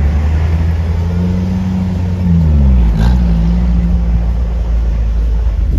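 Off-road vehicle's engine running steadily while driving. About two to three seconds in it changes pitch briefly, then settles again.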